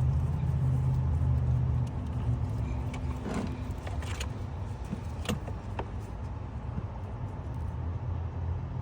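A vehicle engine idling steadily, louder for the first two seconds, with a few light metallic clicks and clinks.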